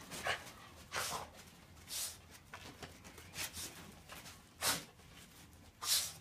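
Small long-haired dog rolling and rubbing itself on a padded chair cushion to dry off after a bath: about six short, scratchy bursts of fur rubbing on fabric, a second or so apart.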